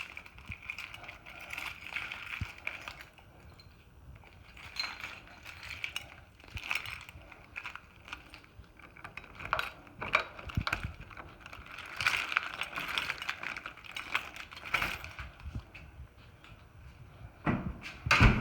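Metal door-lock hardware worked by hand. A loose ring on the lock rattles, clicks and scrapes in repeated bouts, with the loudest clatter near the end. The ring is not tight on the door, and the lock will not lock from the inside.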